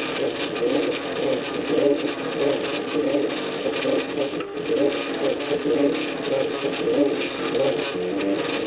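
MakerBot Cupcake CNC 3D printer running mid-print: its stepper motors whir in a string of short tones that keep jumping in pitch as the axes move.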